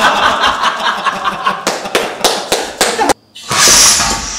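A man laughing hard, with sharp slap-like strokes among the laughs. After a sudden cut, the homemade head-shot rig fires: a short, loud hiss of compressed air from a 120 PSI air tank blasts spaghetti sauce out through a tube.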